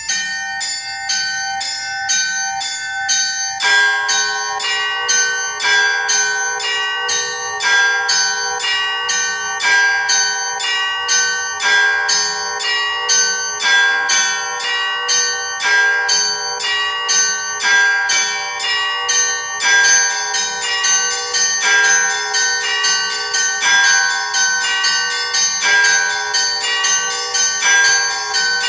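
Traditional Orthodox church peal on five bells of 8 to 96 kg, struck by an automatic electronic bell-ringing system. Small bells strike a quick repeating pattern. A larger, lower bell joins a few seconds in. The high bells ring busier about two-thirds of the way through.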